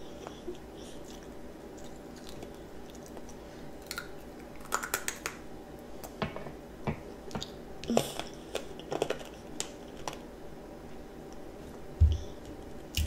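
A child chewing candied strawberries: irregular crisp crunches and wet mouth clicks from the sugar-coated fruit. A dull knock near the end is the loudest sound.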